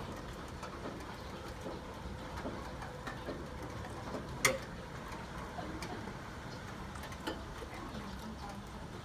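Steady rain hiss with scattered drips and taps, and one sharp tap about halfway through.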